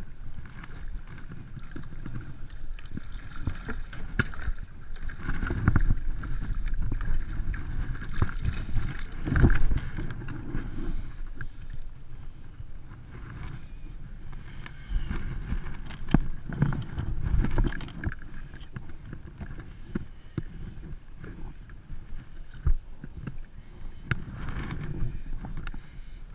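Water slapping and lapping against the hull of a plastic Hobie kayak, with wind gusting on the microphone in uneven surges and scattered small clicks and knocks from gear on the boat.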